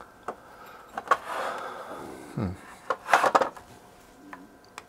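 Handling sounds from the opened power supply's case and front panel being moved and taken off: a few sharp clicks and rubbing, with a louder scraping rattle about three seconds in.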